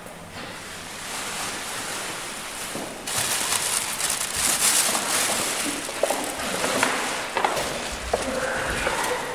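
Large plastic sacks rustling and crinkling as they are handled and lifted, louder from about three seconds in.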